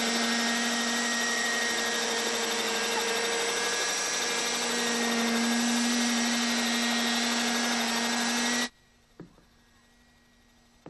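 Radio-controlled model helicopter's small engine and rotor running steadily with a buzzing whine as it lifts off. The sound cuts off suddenly near the end.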